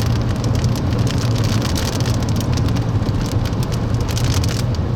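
Rain hitting a moving car, many sharp drop impacts, over the steady low hum of the car driving on the road, heard from inside the cabin.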